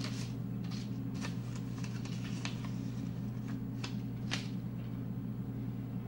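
Paper rustling and crinkling in short, irregular bits as cut-out paper shapes are picked up, folded over and stacked, over a steady low hum.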